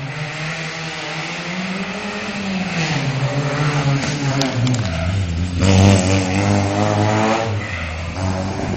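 Rally car engine running hard, its pitch climbing and then falling away about three seconds in, and loudest around six seconds in as the car comes close.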